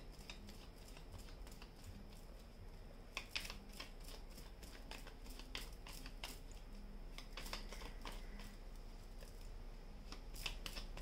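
Faint rustling and clicking of tarot cards being handled: a scatter of short, crisp, irregular ticks, busiest a few seconds in.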